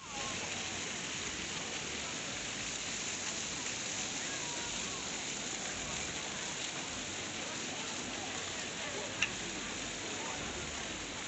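Ground-level fountain jets splashing steadily onto wet stone paving, with faint voices of people around. A short sharp sound stands out about nine seconds in.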